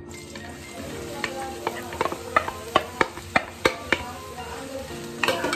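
Sliced red onions tipped into hot oil in a wok, sizzling, with a run of sharp knocks of a utensil against the plate and pan about two a second. The loudest knock comes about three and a half seconds in, and a last few come near the end.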